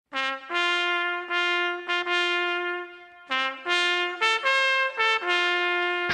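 Military signal bugle sounding a call: a short low note leading into long held notes, then quicker short notes, with a brief pause about three seconds in before the call resumes.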